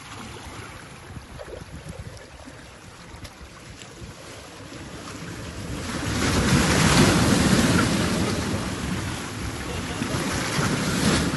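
Ocean surf washing over breakwater rocks, with wind on the microphone. A big wave surges in about six seconds in, the loudest part, then eases off before more water rushes in near the end.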